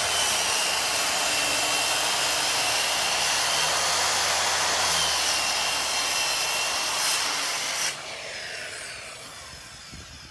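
Corded circular saw ripping a sheet of plywood along a straightedge guide, cutting steadily and loudly. About eight seconds in the cut ends, the motor is released and the blade winds down with a falling whine.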